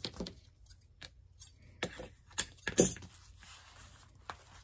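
Thin plastic tablecloth rustling and crinkling as hands gather the folded sheet and work twine around its middle, with a few sharp clicks and knocks from the handling.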